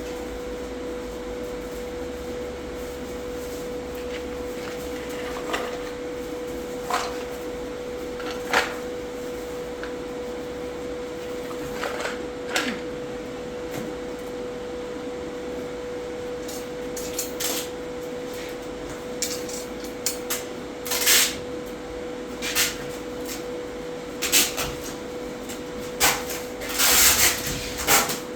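A steady hum under scattered short clicks and scrapes of parts being handled and rubbed, the knocks coming more often near the end.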